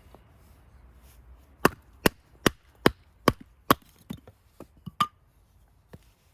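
Firewood being chopped or split: six sharp, evenly spaced wooden knocks about two and a half a second, followed by a handful of lighter, irregular knocks.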